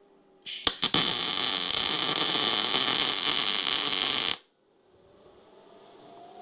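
Miller MIG welder laying a weld bead on steel: the arc strikes with a couple of sharp pops about half a second in, then crackles steadily for about three and a half seconds and cuts off suddenly.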